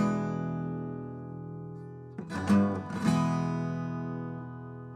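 Acoustic guitar: a chord strummed and left ringing, then a second strum a little over two seconds in, also left to fade.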